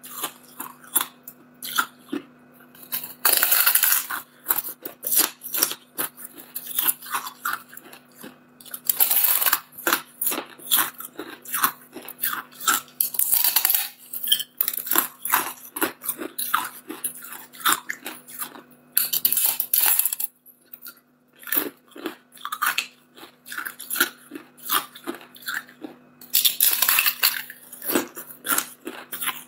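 A person biting and chewing a block of hard clear ice: dense crackling and crunching, with four louder bursts of crunching several seconds apart as chunks are bitten off.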